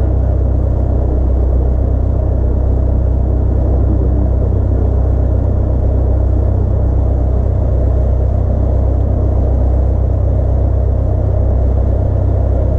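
Single-engine light aircraft's engine and propeller running steadily on the ground, heard inside the cockpit as a loud, even, low drone.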